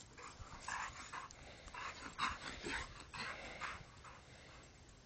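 A dog barking faintly, a string of short barks with small gaps between them.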